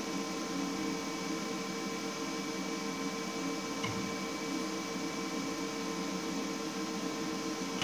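Steady workshop hum with several faint fixed tones over a light hiss, and one faint click about four seconds in.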